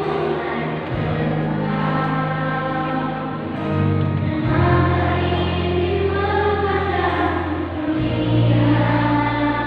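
Children's choir singing, over sustained low accompaniment notes that change pitch every few seconds.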